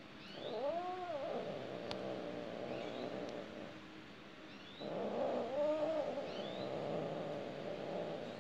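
Cat yowling during mating: two long, wavering caterwauls, the first starting about half a second in and the second about five seconds in, each lasting three to four seconds.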